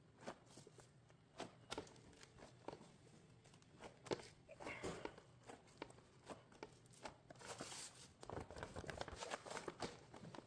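Quiet handling noises: scattered light clicks and taps, with stretches of rustling and scraping about halfway through and again near the end.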